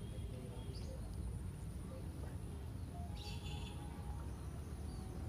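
Small birds chirping faintly, with a brief trill about three seconds in, over a steady low rumble of outdoor background noise.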